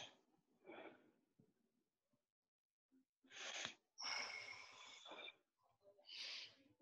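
Faint breathing from a man: a few audible breaths in and out. The longest breath comes about four seconds in, against near-silent room tone.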